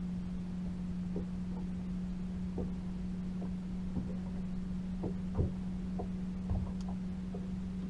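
Steady low hum of a boat's motor, with scattered light knocks and a sharper thump about five seconds in.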